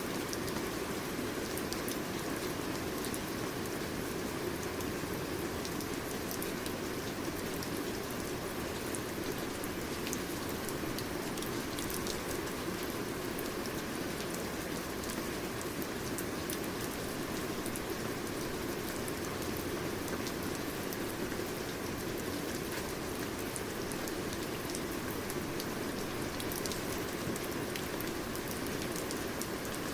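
Steady rain falling, an even hiss of many drops with fine pattering ticks and no break or change.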